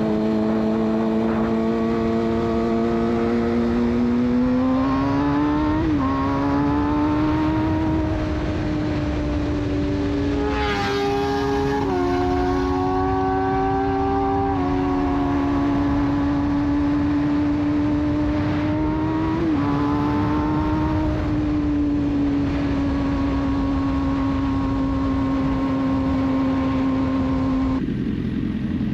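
Suzuki GSX-R600's inline-four through a de-catted Yoshimura exhaust pulling at high revs. The engine note climbs and drops with an upshift about six seconds in, and again around twenty seconds in, holding steady between. A second engine note runs alongside for a few seconds around ten seconds in, and the bike's note breaks off near the end.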